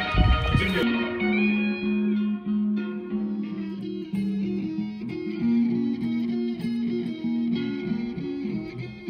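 Clean electric guitar playing a slow, repeating melodic figure of sustained single notes, after a brief low thud in the first second.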